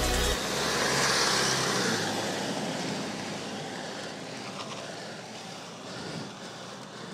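An SUV overtaking and pulling away up a steep road: its engine and tyre noise is loudest about a second in, then fades steadily as it moves off ahead.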